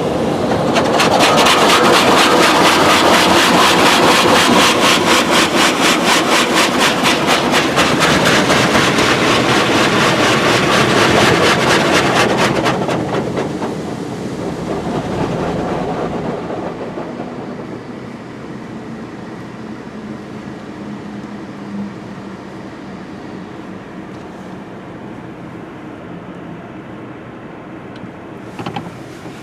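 High-pressure water blasters of a Belanger Kondor automatic car wash spraying the car: a loud rush of water with a fast, fluttering pulse. About 13 seconds in it eases off and fades to a quieter steady noise of the wash machinery.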